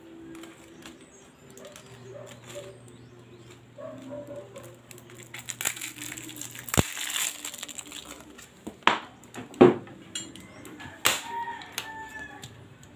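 A roll of vinyl electrical tape being handled, with a short hissing peel of tape off the roll around the middle. Several sharp knocks and clicks of the tape and wires against the wooden table follow.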